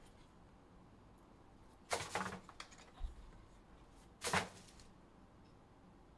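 Handling noise from opening a trading-card box and its clear plastic card case: a burst of rustling about two seconds in, a soft low thump about a second later, and a second short, louder burst just past four seconds.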